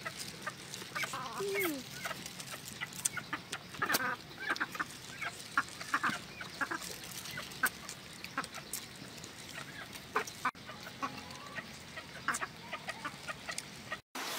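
Chewing and lip-smacking from people eating roast chicken with their hands, many short wet clicks, while chickens cluck in the background, with a short falling call about a second in.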